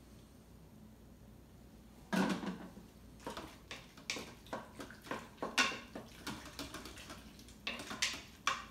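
A utensil stirring a saucy ground-beef mixture in an Instant Pot's stainless steel inner pot, knocking and scraping against the metal in a string of irregular clatters that begin about two seconds in.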